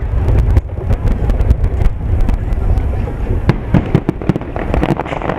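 Aerial firework shells bursting in quick, irregular succession: sharp cracks and bangs over a continuous low rumble, thickening into a dense crackle near the end.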